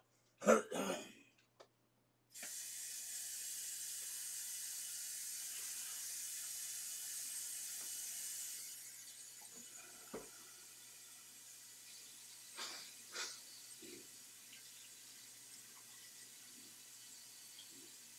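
A man's cough near the start, then a tap running steadily, heavier for the first six seconds or so and lighter after, with a few small knocks.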